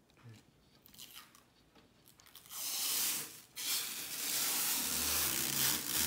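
Clear protective plastic film being peeled off the front panel of a new PC case. It gives a long, crackly ripping hiss that starts about two and a half seconds in, with a brief break shortly after.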